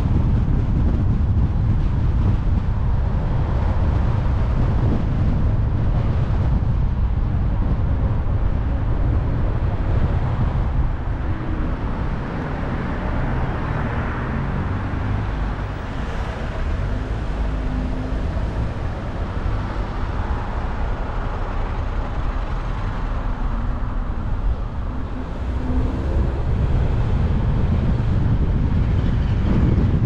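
Car driving along: a steady low rumble of engine and road noise, easing off a little through the middle and picking up again near the end.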